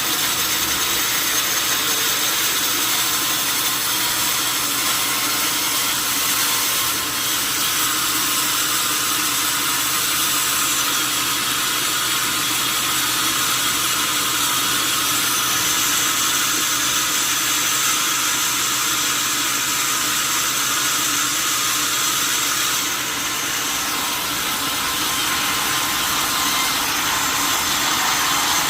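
Sawmill saw running steadily, a continuous high-pitched machine noise with no breaks.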